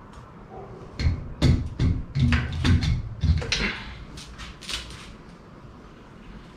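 Metal clunks and knocks as the carburettor is worked loose and lifted off a Chevrolet 350 V8's intake manifold, a quick run of them starting about a second in, followed by lighter rattling and scraping as it comes away.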